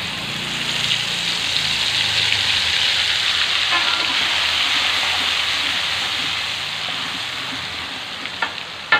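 Ground spice paste sizzling as it fries in hot oil in a wok, stirred with a metal spatula. The sizzle swells over the first few seconds, then slowly eases, with a couple of sharp knocks of the spatula on the pan near the end.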